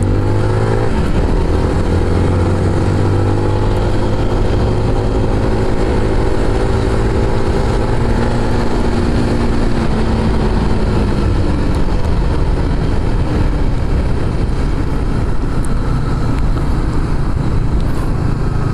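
Motorcycle engine running under way, with steady wind rumble on the microphone. The engine note rises gently and eases off over the first ten seconds or so, then sinks beneath the wind.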